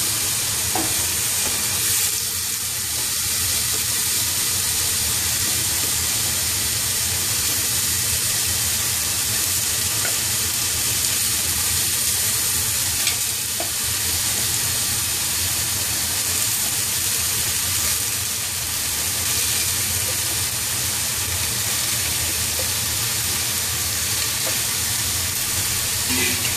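Beef rib pieces sizzling steadily as they fry in hot oil and spice paste in a stainless steel pot.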